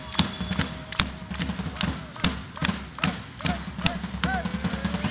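Volleyball supporters beating a steady rhythm, about two and a half beats a second, with voices shouting and cheering over it.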